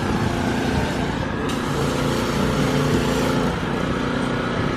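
Street traffic: a road vehicle's engine running steadily close by, with a constant hum.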